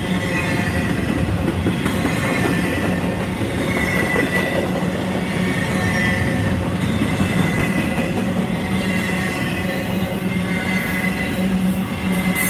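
Double-stack container freight train rolling past, a steady rumble of steel wheels on rail with thin high-pitched wheel squeal that comes and goes.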